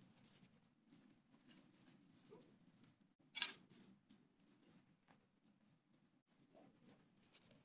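Faint rustling and crackling of dry leaf litter as a hand scatters and brushes over it, with a sharper crackle about three and a half seconds in.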